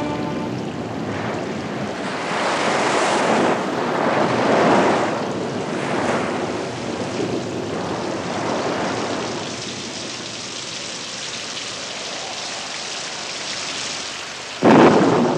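Storm sound effects: wind and crashing surf that surge and fall back in several swells, then a sudden loud crash near the end.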